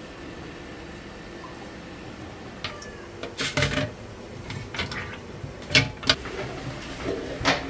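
Aquarium stones and gravel knocking against a plastic mug as they are scooped out of a drained fish tank: a series of sharp, uneven clacks starting about three seconds in.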